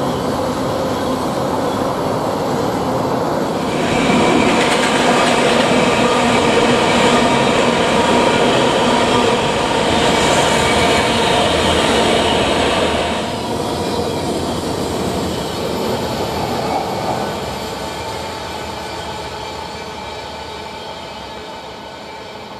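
Norfolk Southern freight train passing: the trailing GE diesel locomotives run by with a steady engine hum, then loaded tank cars roll past, the steel wheels on the rails louder for several seconds in the middle. The sound then fades steadily as the train moves away.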